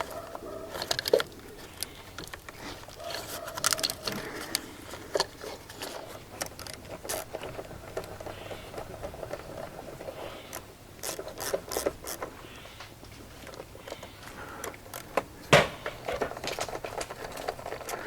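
Hand tools working on spark plugs in an engine bay: ratchet clicks and small metallic clinks. Scattered sharp bangs from acorns falling onto the vehicle, the loudest about three-quarters of the way through.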